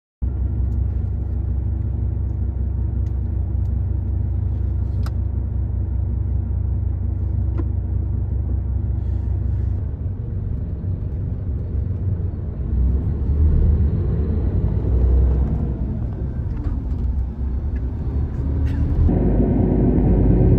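A large vehicle's engine running steadily: a low rumble with a steady hum above it. The sound shifts about halfway through, with pitches gliding for a few seconds, and it grows louder near the end.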